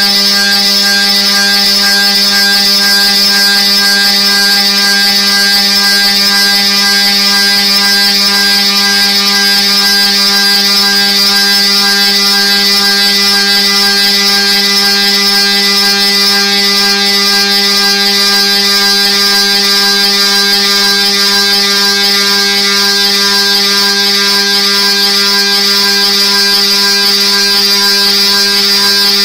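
Electric drive motor of an antenna near-field scanner gantry moving its carriage along the rails at a constant speed: a steady, even machine whine with a low hum underneath and a bright hiss-like high tone on top.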